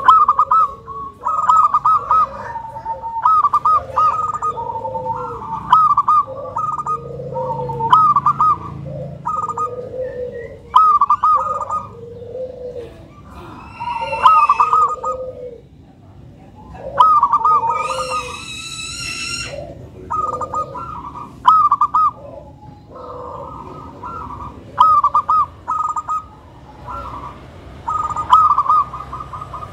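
Zebra doves (perkutut) cooing: a run of rolling, warbled phrases, one after another with short gaps. Faint high chirps sit above them, and a brief higher-pitched call breaks in a little past halfway.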